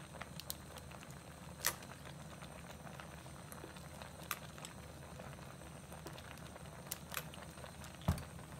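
Earthenware hot pot of broth heating on a tabletop burner, not yet at the boil: a faint steady low hum with scattered small ticks and pops. A sharper knock comes near the end.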